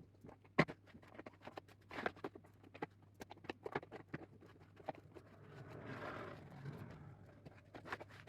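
Hands packing a parcel: scattered light taps, clicks and rustles of handling the package, with one sharper tap about half a second in. Between about five and seven seconds in there is a rasping stretch of packing tape being pulled off its roll.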